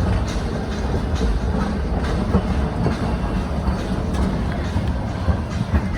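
Metre-gauge Nilgiri Mountain Railway train running along the track: a steady low rumble of the moving coaches, with scattered clicks from the wheels on the rails.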